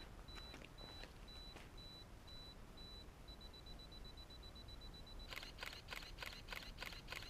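Camera self-timer counting down: a high beep about twice a second that speeds up into rapid beeping, then, a little past five seconds in, the shutter fires in a quick series of clicks, about four a second, as the camera takes a burst of photos.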